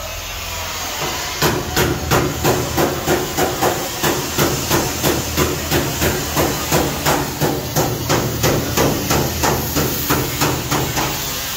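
Hammer blows on metal, struck in a steady run of about three a second, beginning about a second and a half in and stopping just before the end, over a steady hiss of workshop noise.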